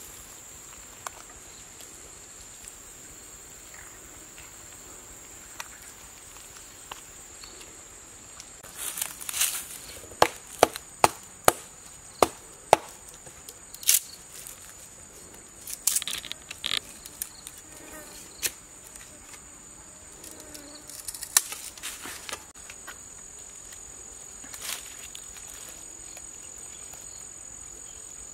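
Steady high-pitched insect drone, with a quick run of about six sharp chopping knocks around ten to thirteen seconds in and scattered smaller taps and rustles of handling in dry leaves.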